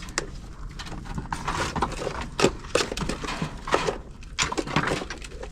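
Chickens scuffling about in a coop as they are herded: scattered knocks and scrapes with bursts of rustling.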